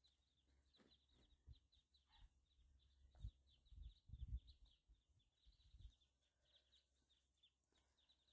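Near silence with faint, rapid high chirping of birds throughout, and a few dull low thumps between about three and six seconds in.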